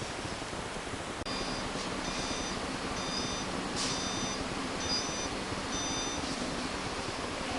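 Electronic beeping: about six short, high beeps, roughly one a second, starting a little over a second in, over a steady background hum.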